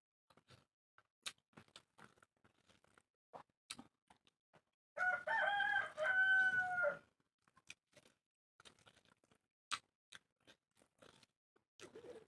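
A rooster crows once, a call of about two seconds starting about five seconds in, with a short break in the middle and a falling end. Faint scattered clicks run around it.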